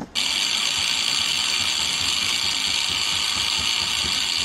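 Loud, steady hiss, strongest in the upper range, that starts suddenly and holds even before cutting off at the end.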